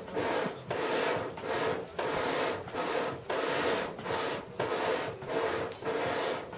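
Rhythmic rasping strokes of a hand tool worked back and forth on metal, about ten even strokes at roughly one and a half a second.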